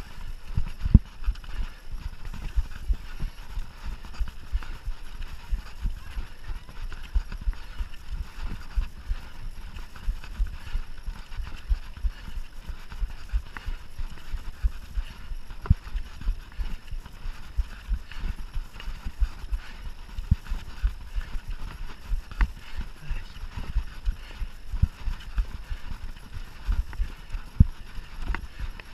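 Mountain bike ridden fast over a rough cross-country trail: a dense, irregular stream of knocks and rattles from the bumps, several a second, over a steady rushing noise.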